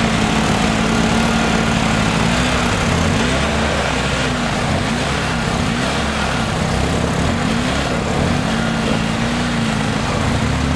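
ATV engine running hard, holding a steady pitch for about two seconds and then revving up and down again and again.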